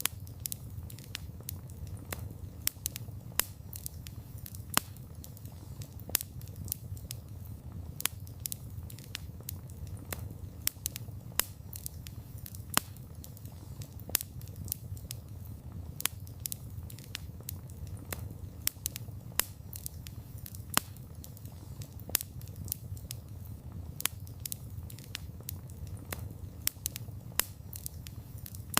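Wood fire burning: a steady low rumble of flames with frequent irregular crackles and pops of burning wood, a few of them sharper and louder.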